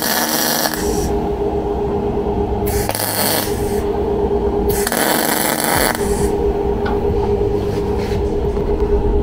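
MIG welder arc crackling in about three short bursts of roughly a second each, as stitch welds are laid on a car's steel frame member.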